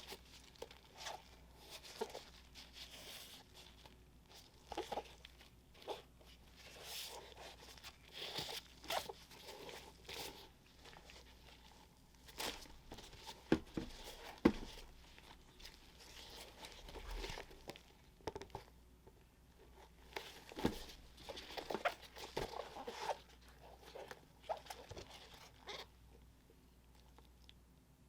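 Paper crinkling and rustling as it is unwrapped and handled, broken by small taps and clicks, with two sharper knocks about halfway through; it dies away near the end.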